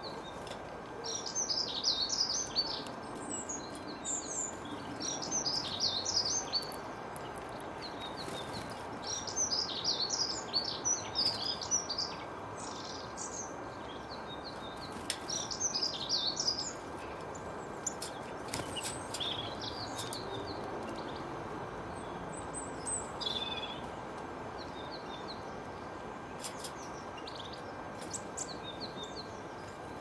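Small songbirds chirping and twittering in bursts of a few seconds each, busiest in the first half and thinning out later, over a steady outdoor hiss with a faint continuous tone.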